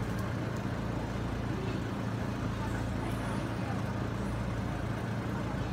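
A motor vehicle's engine running steadily at idle, a constant low hum with a few faint ticks over it.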